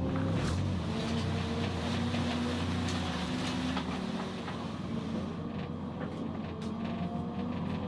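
Toyota Starlet EP91's four-cylinder engine heard from inside the cabin, pulling hard on track, its note climbing and then dropping as the driver changes gear, with scattered sharp clicks over it.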